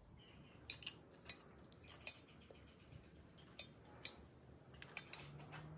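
Light, sparse clicks and clinks of small spacers being handled and set in place on the lower intake manifold of a Mitsubishi 6G75 V6, about half a dozen over a few seconds.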